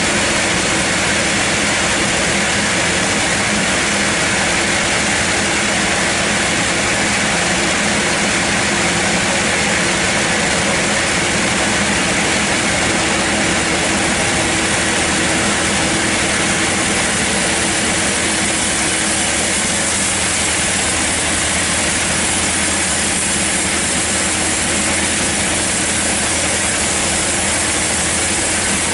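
Band sawmill running steadily: a constant loud mechanical drone with a hum and a dense hiss, unbroken throughout.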